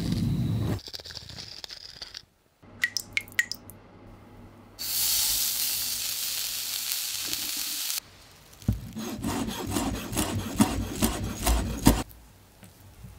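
A sequence of close-miked food-prep sounds: a knife slicing through a block of raw tuna at the start, a few light clicks, then a steady hiss that starts and stops abruptly and lasts about three seconds. It ends in a fast run of knife strokes chopping fresh herbs on a cutting board.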